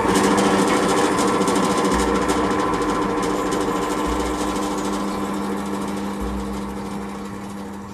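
Benchtop drill press running, its bit drilling through a wooden fence: a steady hum that starts abruptly and slowly grows fainter.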